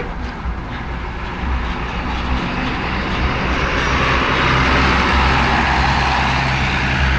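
Tour bus diesel engine running as the bus pulls out. The engine and road noise grow louder from about three seconds in as it comes close.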